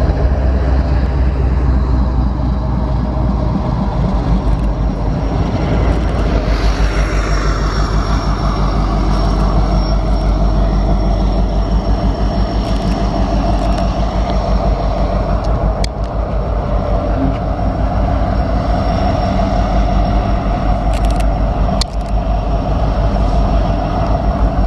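Freight train passing close below: the low rumble of diesel locomotives, then the steady rapid clatter of container cars' wheels rolling over the rails. A thin high tone runs through it from about six seconds in.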